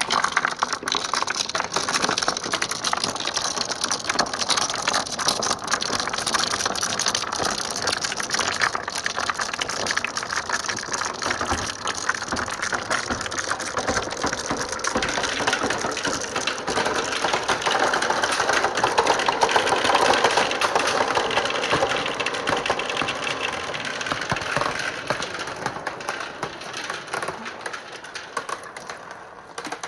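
Many marbles rolling and clattering through a run of PVC pipe and plastic rain gutters, a dense continuous rattle of small clicks that thins out near the end.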